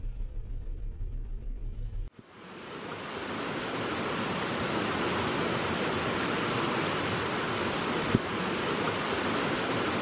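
A low vehicle engine rumble cuts off abruptly about two seconds in. It gives way to the steady rush of a shallow, stony river flowing over rocks and riffles. A single sharp click comes about eight seconds in.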